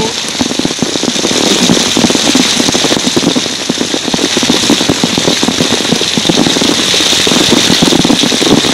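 Mains-pressure water jetting freely from a sawn-through blue PVC supply pipe and spattering onto the camera and wet ground: a steady loud rushing spray with a dense patter of drops. The supply is still on, so the cut pipe is running at full mains pressure.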